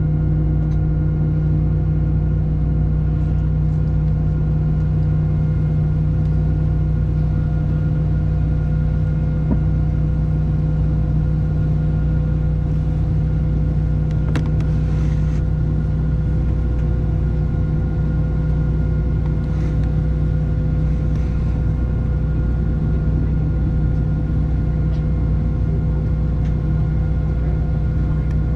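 Steady cabin drone of a Boeing 737-700 heard from a window seat inside the cabin: a low rumble with a steady hum of several held tones from the engines at idle and the cabin air system.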